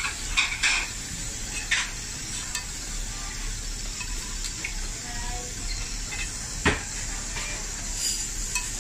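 Raw meat sizzling on a hot tabletop grill plate, with metal tongs clicking against the plate as pieces are laid out: a few clicks in the first two seconds and a sharper knock nearly seven seconds in.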